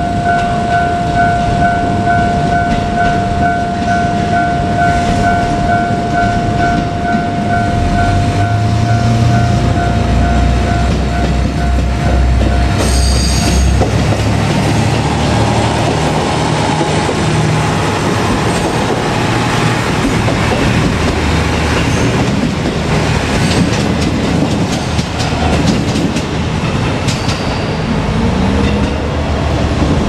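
Level crossing warning bell ringing in a steady rapid pulse while a JR Kyushu KiHa 200 diesel railcar approaches, stopping about thirteen seconds in just after a short horn blast. The railcar then crosses with its diesel engine running and its wheels clattering over the rail joints.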